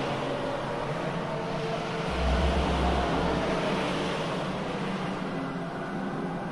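A steady wash of noise from a stormy sea-and-wind sound effect, with a deep rumble swelling about two seconds in and lasting a second or so. Faint held tones sit underneath.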